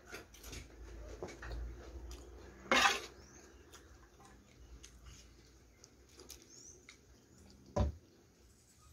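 Close-miked eating and food-handling sounds: soft chewing with scattered small clicks, one loud crackle about three seconds in, and a short low thump near the end.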